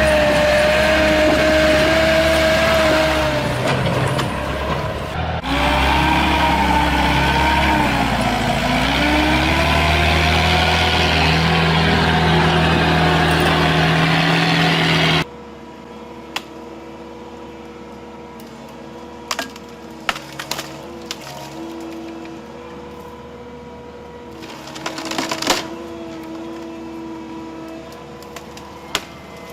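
A machine's engine running loudly, its pitch shifting up and down, with a short break about five seconds in. It cuts off suddenly about halfway, leaving a much quieter steady hum with scattered clicks and knocks.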